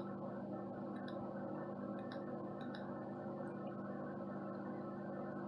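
Steady low hum, with a few faint clicks in the first three seconds as the buttons of a handheld battery tester are pressed to start a test.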